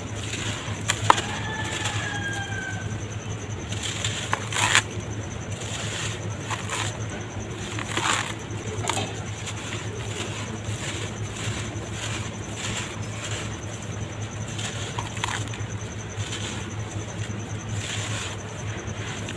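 Chunks of dry red dirt soaking up water and crumbling apart, with scattered crackles and small snaps over a steady low hum, and a brief falling whistle-like tone near the start.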